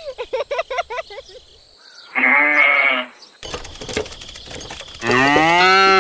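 Farm-animal calls: quick chirping in the first second, a bleat lasting about a second around two seconds in, then a long, low cattle moo from about five seconds in that rises and then falls in pitch.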